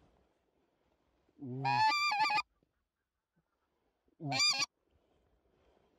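Hand-blown goose call sounded twice: a long honk that breaks from a low note up to a high one, then a short honk about two seconds later, calling to a goose that is turning toward the decoys.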